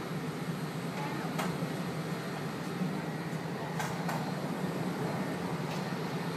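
Steady low hum of airport ramp noise from aircraft and ground equipment, with a few faint clicks.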